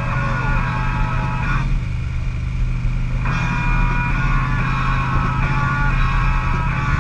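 Harley-Davidson Electra Glide Classic's Twin Cam 88 V-twin engine running steadily as the motorcycle is ridden along a road.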